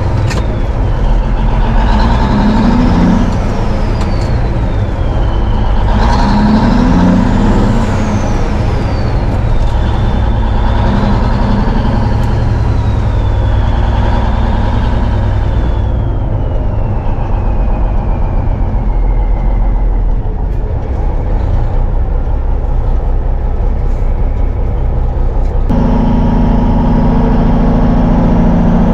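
A 1971 Peterbilt 359 semi truck's diesel engine, heard from inside the cab as it pulls through the gears. The engine note climbs and drops with each shift, and a high whistle rises and falls alongside it. Near the end the engine settles into a steady run.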